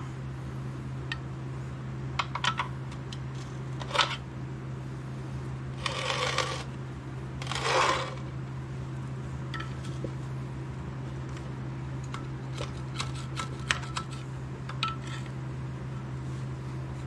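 Scattered metallic clinks and knocks of hand tools and metal parts being handled, with two short scraping sounds near the middle, over a steady low hum.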